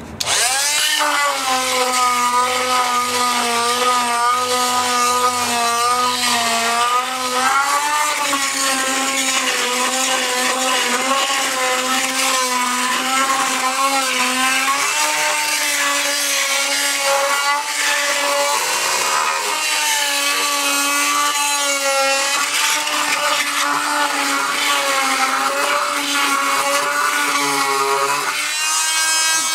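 Chicago Electric oscillating multi-tool with a carbide masonry blade grinding thick old mortar off the back of a floor tile. It is switched on right at the start and runs as a loud buzzing hum, its pitch wavering, over a gritty scraping hiss.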